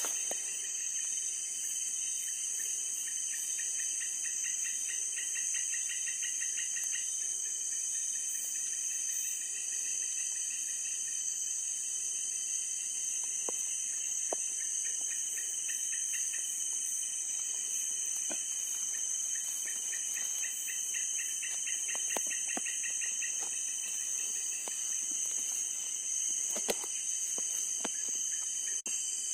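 Steady high-pitched chorus of crickets and other night insects. A rapid pulsing trill joins twice, with a few faint clicks.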